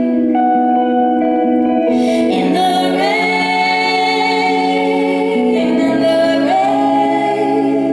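Two women's voices singing a slow song in harmony over electric guitar chords, with long held notes.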